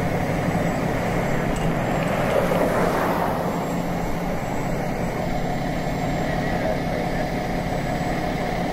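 Fire engine's diesel engine idling with a steady low hum under constant outdoor noise, with a brief swell of noise about two and a half seconds in.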